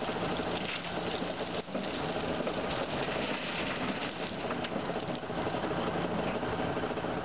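Coal pouring from an excavator bucket into a steel dump-truck bed, a steady rattling rush of falling lumps over the hum of the diesel engines.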